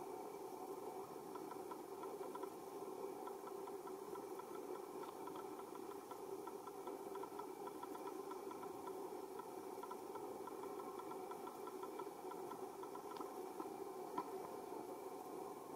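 Steady droning hum with a faint rapid pulse running through it, and a single sharp click about fourteen seconds in.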